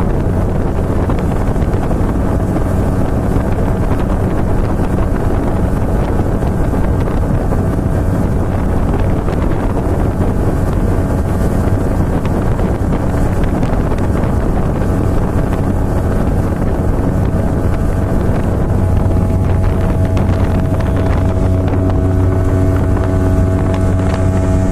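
A small engine running steadily at a constant speed, with wind buffeting the microphone; a few higher tones join the hum near the end.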